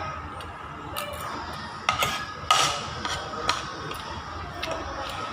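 Scattered clinks and taps of cutlery on a plate during a meal, about half a dozen, the loudest a little past two seconds in, over a low steady background hum.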